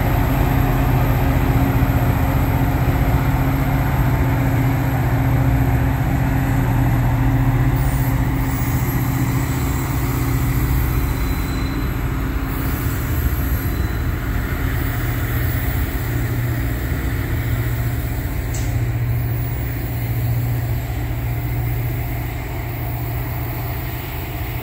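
Caltrain F40PH diesel-electric locomotive running with a steady low drone as it moves along the station platform, the sound easing off slightly near the end.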